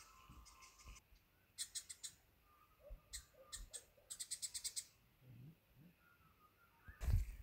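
Birds and frogs calling at dusk, with two short trains of rapid high-pitched clicking calls and a few fainter, lower calls. A loud thump sounds near the end.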